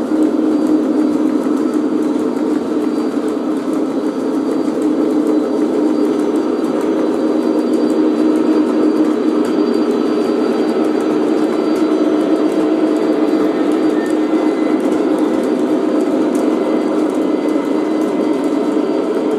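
O gauge three-rail model coal train of many hopper cars running on its track: a steady rumble of metal wheels on the rails, with many small clicks.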